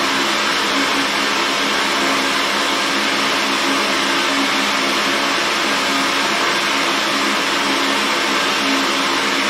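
Steady blower noise with a low hum running underneath, from the fiber laser engraving setup while only its red aiming light is on and it is not yet marking.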